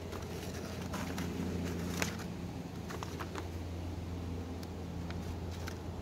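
Secateurs snipping dry Love-in-a-Mist (nigella) seed heads into a paper bag: scattered sharp snips and crackles, the loudest about two seconds in, over a steady low background drone.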